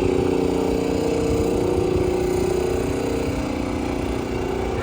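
Car engine running steadily with a low rumble, heard while driving.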